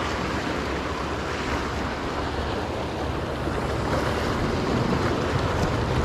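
Ocean surf washing against the rocks of a jetty, a steady rush of noise, with wind blowing on the microphone.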